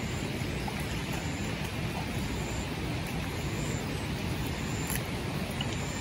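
Steady outdoor background noise with no distinct events: a hiss of wind and light rain.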